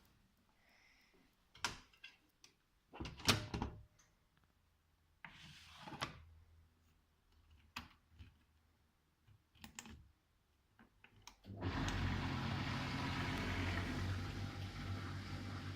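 Miele Professional washing machine starting its wash: a series of separate clicks and knocks, then about twelve seconds in a steady rush of water as the machine begins filling, with a low hum underneath.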